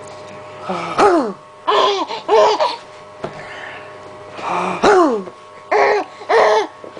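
A 4-month-old baby laughing in short bursts, twice in a row, in two rounds; each round follows a funny noise from the mother, a vocal sound that slides down in pitch.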